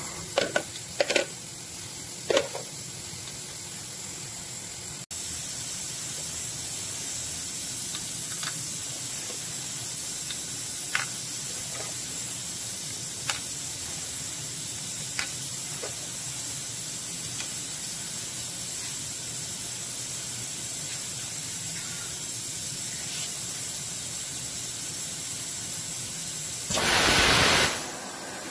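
Steady hiss from a spray nozzle blowing onto the drill bit of a CNC milling machine while it drills, with a few light metal clicks near the start as parts are set in the vise. Near the end the rushing noise swells louder for about a second and a half.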